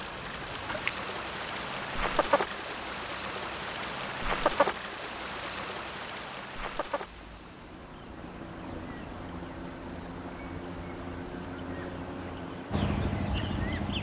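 Running river water with several short, sharp sounds from a Eurasian otter at the water's edge, which has just caught a fish. Near the end a small boat's motor starts running, loud and low.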